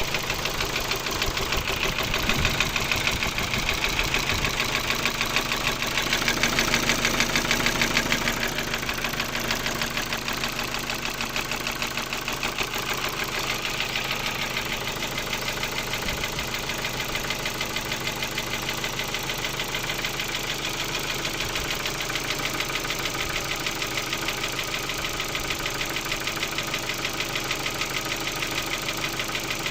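Ford Focus II 1.6 115 hp four-cylinder petrol engine running, probably at idle, with a fast, steady knocking from inside the engine. The knock is the engine fault being shown.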